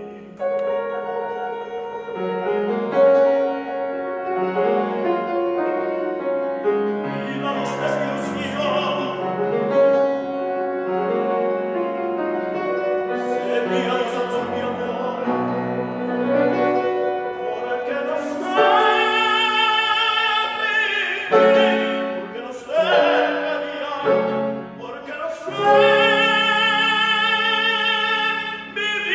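Male operatic voice singing a Spanish zarzuela romanza with grand piano accompaniment, holding long, loud notes with wide vibrato in the second half.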